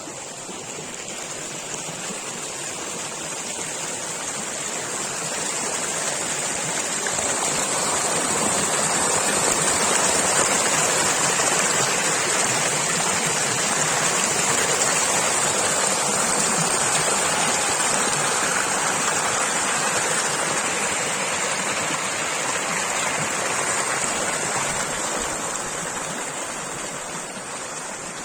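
Running water of a stream rushing steadily, growing louder toward the middle and easing off near the end, with a steady high hiss above it.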